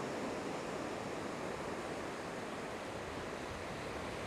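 Small surf breaking and washing up the sand in a steady rush of water.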